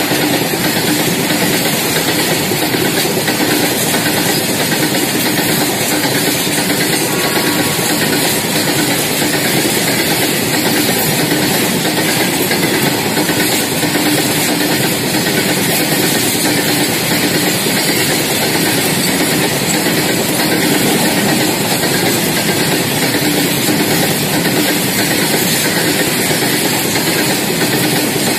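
Long rake of BCNHL covered freight wagons rolling past on the rails: a loud, steady rumble and clatter of steel wheels on track.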